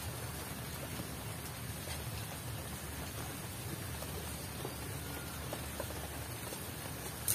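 Coconut solids frying in their own oil in a pan over a wood fire, a steady sizzle with a few faint crackles in the second half, as coconut milk cooks down into cooking oil.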